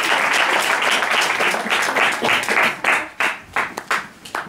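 Audience applauding; the applause thins after about two and a half seconds into a few scattered claps and dies out near the end.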